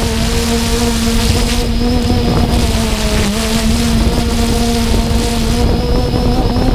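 3DR Solo quadcopter's motors and propellers droning at a steady pitch, heard close up from the GoPro on the drone, over a rush of wind and prop wash. The pitch dips briefly about three seconds in.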